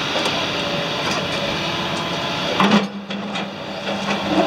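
Heavy road-construction machinery working at close range: a dense mechanical din with a few sharp knocks, and a steady engine hum setting in a little past halfway.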